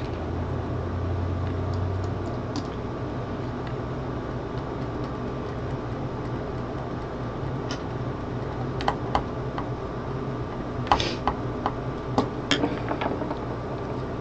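Small precision screwdriver driving a screw into a plastic model train car's truck mount: a cluster of light clicks and ticks in the second half, over a steady background hum.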